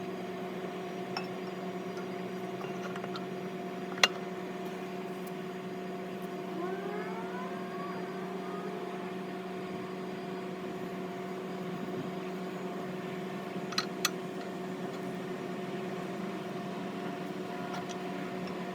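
A steady machine hum with a fixed pitch, with one sharp metallic click about four seconds in and two more close together around fourteen seconds.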